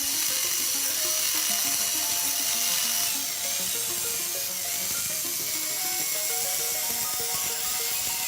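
High-pitched whine of a rotary power carving tool cutting wood, its pitch wavering a little under load, over melodic background music.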